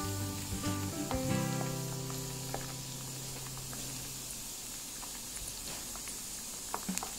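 Cassava slices deep-frying in hot oil in a wok, a steady sizzle, with a few light spatula clicks near the end. Background music plays over it for the first few seconds, then fades out.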